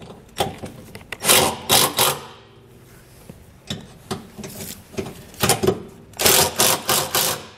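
Cordless impact driver running in several short bursts, hammering as it snugs down button-head cap screws into a steel frame bracket.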